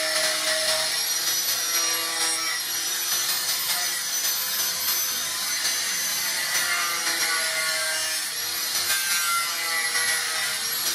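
Angle grinder with a thin cut-off disc running steadily while it cuts through a clear plastic fan blade near the hub: a high, even whine over the rasp of the disc in the plastic.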